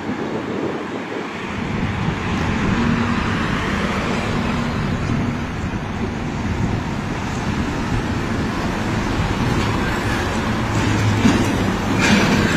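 Road traffic with heavy trucks, including a Mercedes-Benz Actros tractor unit, passing close, their diesel engines running under a steady rush of tyre and traffic noise. A short hiss comes near the end.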